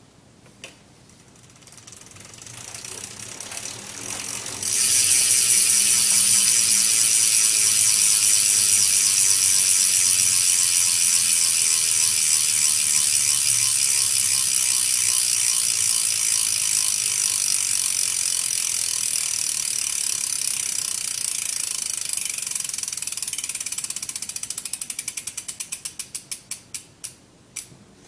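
BMX rear hub ratcheting as the wheel spins freely: a fast, loud buzz of pawl clicks, which the owner thinks comes from a Bicycle Union hub. Near the end the wheel winds down and the buzz slows into separate clicks before it stops.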